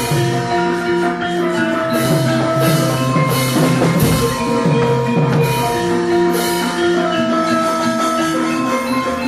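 Javanese gamelan ensemble playing: ringing metallophone notes held over lower drum and gong tones, with sharp high strikes every second or so.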